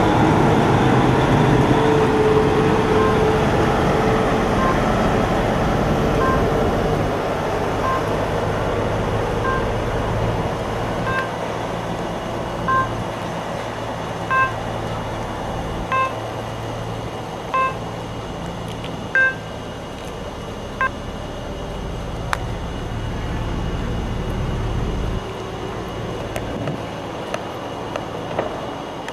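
Diesel semi-truck engine running as it pulls away with a boat on its trailer, fading as it goes. A reversing alarm beeps about every second and a half from a few seconds in until about twenty-one seconds.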